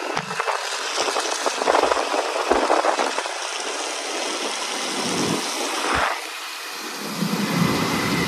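A vehicle running along a road in traffic: a steady rushing noise with a few dull thumps.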